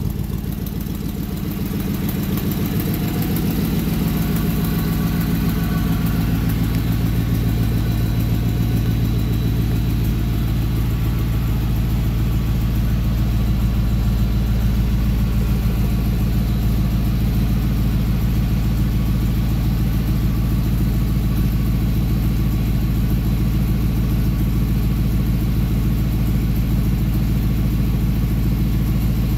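GM 5.3-litre LS-based V8 idling steadily at about 830 rpm on its first startup, still warming up with coolant near 128 °F. The sound dips a moment at the start and builds over the first few seconds, then holds even.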